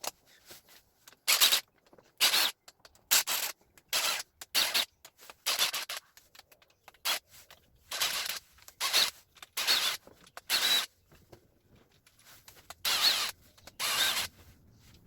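Socket ratchet working engine crankcase bolts loose: short rasping bursts of ratchet clicks, one or two a second, with a pause of about two seconds near the end before two more strokes.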